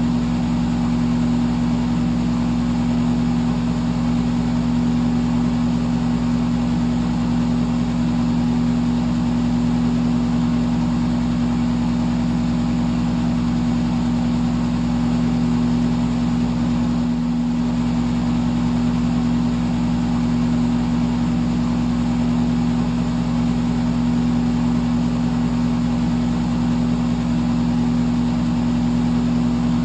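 Electric fan running steadily: an even rushing hiss of air and blades over a low motor hum.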